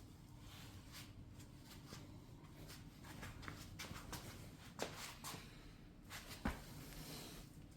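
Faint rubbing and handling sounds, with a light knock about five seconds in and a sharper one a second and a half later.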